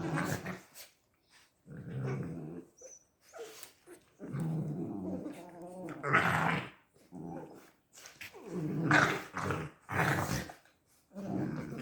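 Young puppies growling in repeated bouts, with a few louder, sharper outbursts in the second half.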